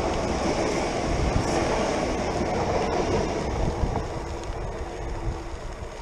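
Renfe commuter electric train passing close by on the track, a steady rumble and rail noise that fades away from about four seconds in as the train draws off.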